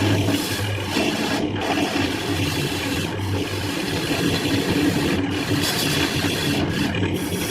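An electric woodworking tool cutting or abrading wood: a steady motor hum under continuous rasping, scraping noise that eases briefly every second or two.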